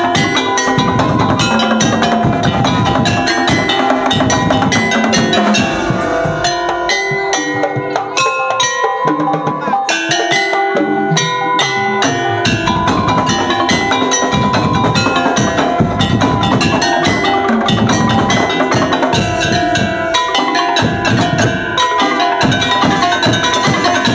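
Madurese daul (tongtong) ensemble playing a lively rhythmic piece: wooden slit drums and drums keep a dense beat under ringing tuned percussion. The low drums drop out for a few seconds about a third of the way in, then come back in.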